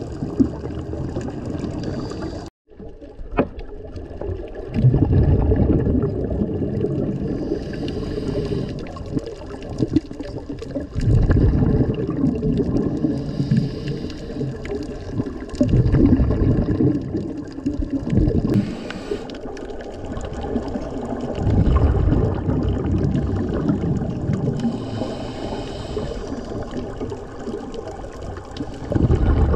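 Scuba regulator breathing underwater: a hiss on each inhale, then a rumble of exhaled bubbles, repeating about every five to six seconds. The sound cuts out for a moment a couple of seconds in.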